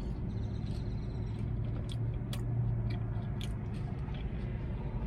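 Close-up chewing and biting of a cheesy pizza puff, with scattered short wet mouth clicks over a steady low hum.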